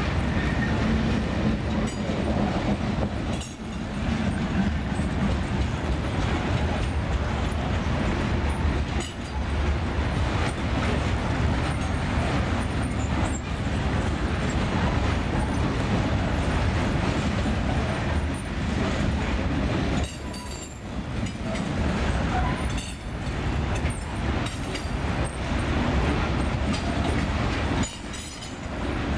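Ballast hopper cars of a CSX freight train rolling past on steel wheels: a steady rumble and clatter of wheels on rail that dips briefly a few times.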